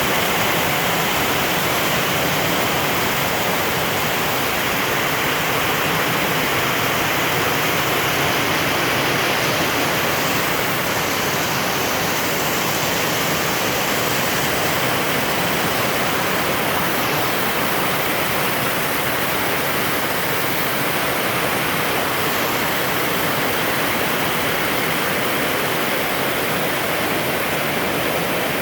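Heavy rain pouring down, a steady, dense hiss that does not let up.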